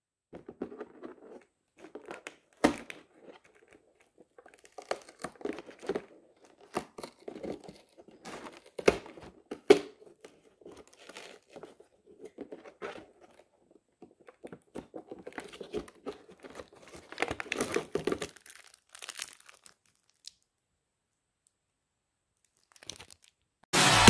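Cardboard door of an advent calendar being poked in and torn open by hand: irregular crackling, tearing and rustling that stops about three-quarters of the way through. Loud electronic music starts right at the end.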